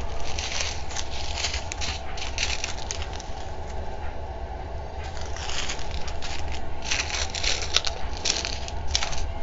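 Small clear plastic bags of diamond painting drills crinkling as they are handled and shuffled, in irregular crackles that thin out around the middle and get busier again after about six seconds.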